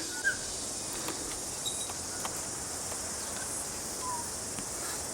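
Steady high-pitched insect chorus, with a few faint, brief bird chirps scattered through it.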